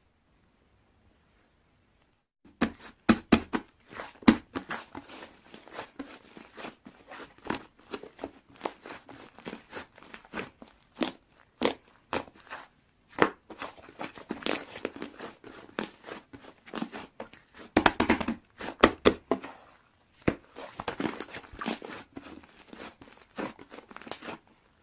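Slime being squished and pressed by hand, making rapid, irregular crackling and popping clicks. It starts about two and a half seconds in, after a near-silent moment.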